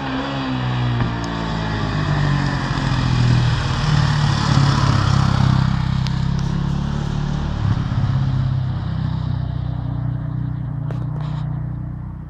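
KTM 525 single-cylinder four-stroke dirt bike engine running as the bike approaches and passes close by. The pitch eases down in the first second, then holds steady, loudest around four to six seconds in, and fades away near the end.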